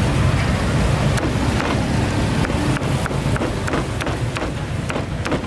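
Cleaver chopping grilled pork on a thick round wooden chopping block: a string of sharp knocks, about three a second, from about a second in. Under it, a steady low rumble of street traffic.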